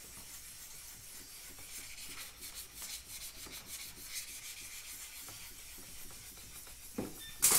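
Hand wet sanding of primer on a plastic motorcycle fairing: faint, repeated rubbing strokes of sandpaper over the panel. A short, louder scrape near the end.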